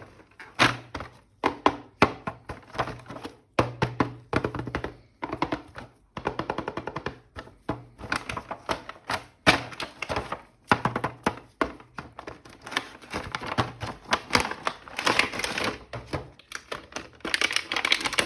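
Plastic toy packaging being handled and opened: a quick, irregular run of clicks, taps and knocks, with longer rustling stretches near the end.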